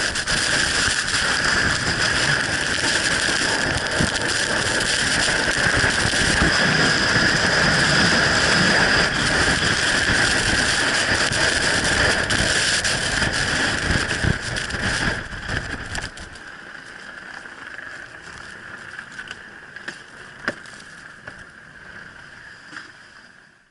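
Blizzard wind blowing hard over the microphone, with wind-driven snow and ice crackling against the camera. The blast eases about two-thirds of the way through, leaving a weaker wind noise.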